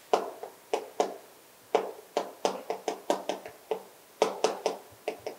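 Chalk writing on a blackboard: an irregular run of about fifteen short, sharp taps as the strokes of the letters land.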